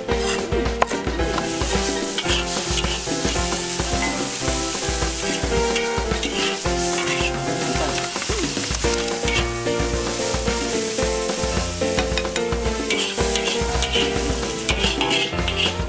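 Meat and vegetables sizzling in a hot wok as they are stir-fried, with the ladle scraping and stirring in the pan. Background music with a steady beat plays under it.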